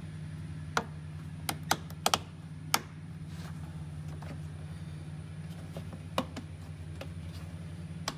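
Sharp plastic clicks and taps as rubber boots are worked onto a Can-Am Defender's plastic snorkel riser pipes: a cluster of about six in the first three seconds, then one past the middle and one near the end. A steady low hum runs underneath.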